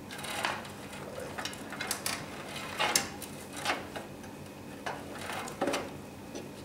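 Metal knocks and scrapes as a power supply unit is set and slid into a computer case: about seven separate clunks spread over a few seconds.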